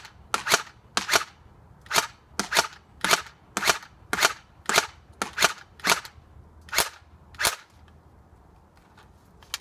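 Dboys M4A1 CQB electric airsoft gun firing single shots in semi-auto, a quick, uneven string of about eighteen sharp cracks that stops about seven and a half seconds in.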